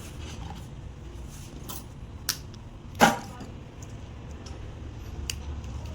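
A few sharp clicks and knocks from handling a wire and its terminal as the negative lead is fitted to a truck alternator, the loudest about three seconds in, over a low steady hum.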